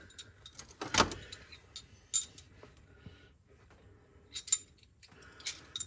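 Steel socket extensions and other metal hand tools clinking and clattering against each other as they are picked up and sorted: a run of sharp, ringing metallic clinks, the loudest about a second in.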